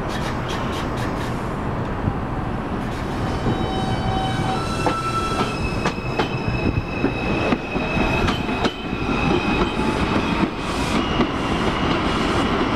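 Bombardier R142 subway train pulling out and gathering speed past the platform. The electric motors' whine climbs in steps, and the wheels click over the rail joints as the cars go by.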